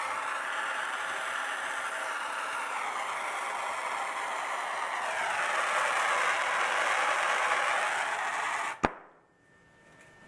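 Handheld gas torch flame hissing steadily while heating a copper pipe joint for soldering, then cutting off suddenly with a sharp click near the end.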